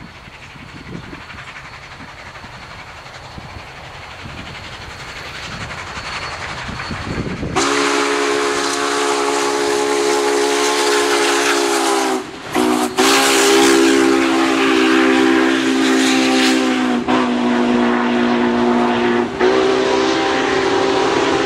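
Union Pacific 844, a 4-8-4 steam locomotive, working upgrade: its exhaust chuffs grow louder as it approaches, then about seven seconds in its whistle sounds several notes at once in long blasts with short breaks and drowns out the rest.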